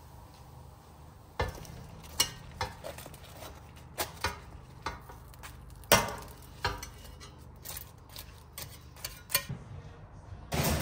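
A metal wire skimmer clinking and knocking against a speckled enamel baking pan while wet burek pastry sheets are handled: a dozen or so short, sharp knocks at uneven intervals, the loudest about six seconds in.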